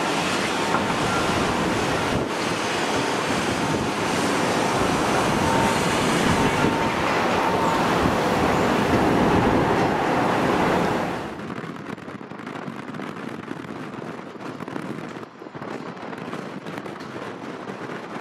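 Airliner jet engines at high power on the runway, a loud steady roar with a faint whine, mixed with wind buffeting the microphone. About eleven seconds in it drops suddenly to a quieter airliner sound with gusts of wind noise.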